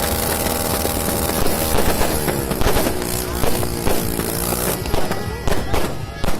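Music with singing over a dense hiss, then about five seconds in a run of sharp firework bangs and crackles starts.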